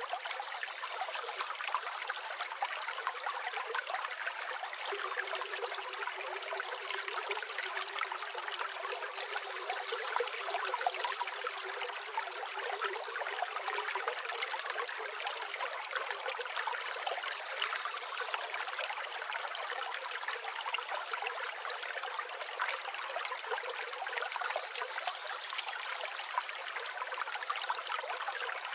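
A river flowing and trickling steadily, with a few faint high bird chirps now and then.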